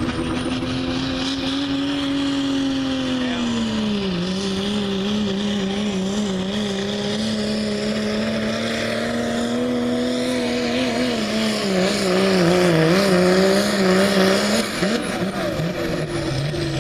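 Turbocharged diesel pickup at full throttle pulling a weight-transfer sled, its engine held at high revs. The pitch drops about four seconds in, wavers and sags again later, and the engine lets off about fifteen seconds in as the pull ends.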